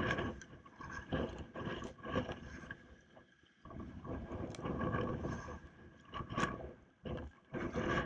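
Sea kayak being paddled: paddle blades dipping and water splashing against the hull of a Prijon SeaYak 500 LV, in uneven surges about once a second, with a brief lull around three seconds in.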